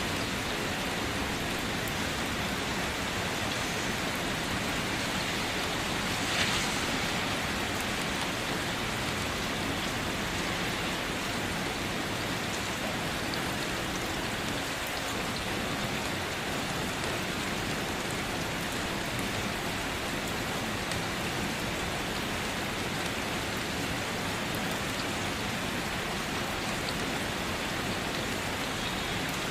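Steady rain falling, an even hiss of drops on a surface. About six seconds in there is one brief, sharper tap.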